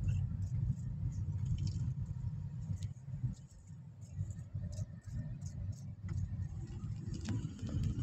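Low road rumble of a car driving along, heard from inside the cabin, with a few light clicks and rattles scattered through it.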